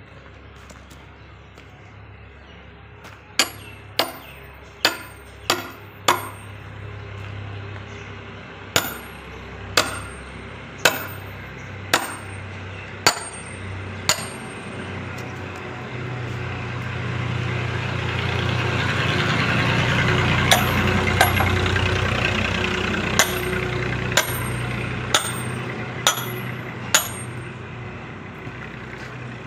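Sharp, ringing blows of a metal hand tool chopping a firewood log, in three runs spaced about half a second to a second apart. Partway through, a low rumble swells up and fades away under the blows.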